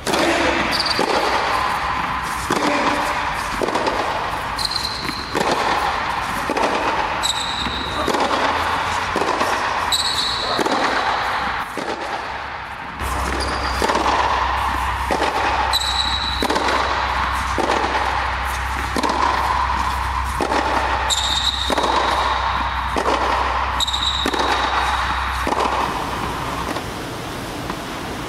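Tennis practice on a hard court: a steady run of racket-on-ball hits and ball bounces, a little over one every half second, with short high squeaks of tennis shoes on the court surface.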